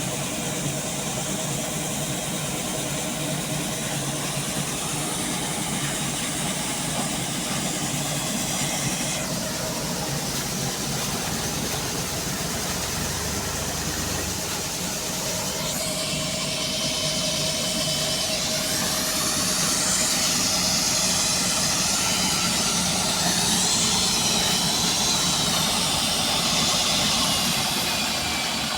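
Combine harvester running steadily under work, its engine and machinery making a continuous drone. From about halfway a high whine that wavers in pitch joins in, and the sound grows a little louder.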